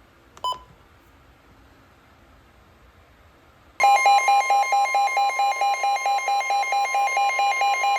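A short single beep, then a weather-radio alert starting suddenly about four seconds in. The steady NOAA Weather Radio warning alarm tone sounds under a receiver's alarm beeping about four times a second, signalling that a new warning broadcast follows.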